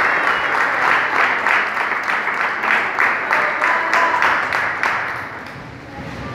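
Group of people applauding, falling into clapping in time at about three claps a second, then dying away about five seconds in.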